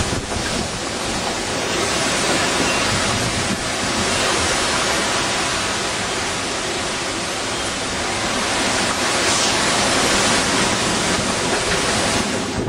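Loud, steady rush of severe storm wind from a tornado passing overhead, strong enough to blow down tree limbs; it stops suddenly near the end.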